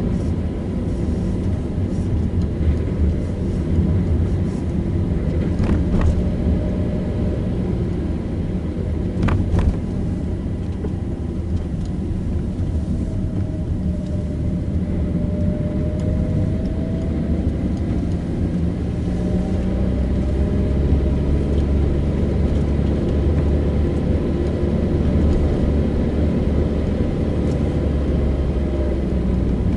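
Car driving along a road: steady engine and tyre rumble, with two sharp knocks about six and nine seconds in and a faint whine that rises and falls near the middle.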